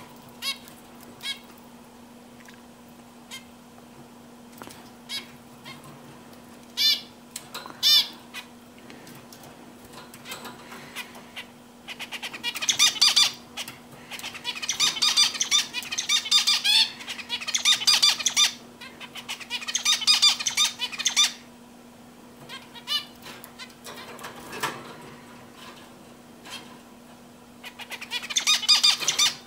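Male zebra finch singing: a few single short calls at first, then from about twelve seconds in several bursts of rapid song phrases, with another burst near the end. A faint steady hum runs underneath.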